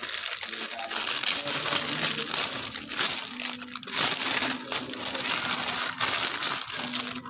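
Plastic packaging crinkling and rustling, handled continuously in irregular swells.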